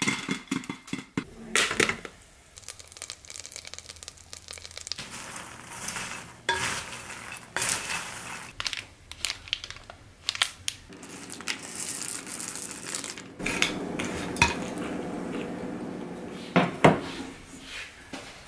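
Stainless steel cooking pot and lid clinking and clattering in a series of sharp knocks, with crinkling of candy wrappers; a sharp double clink near the end.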